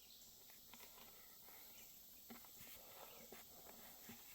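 Near silence: faint outdoor background with a few faint, scattered clicks.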